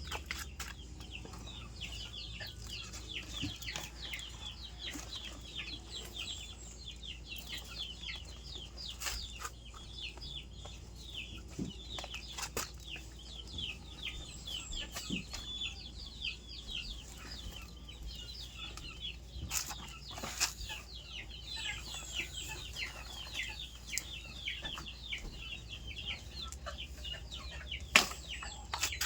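Many birds chirping continuously in quick, high, short calls, with a few sharp knocks, the loudest one near the end, and a steady low rumble underneath.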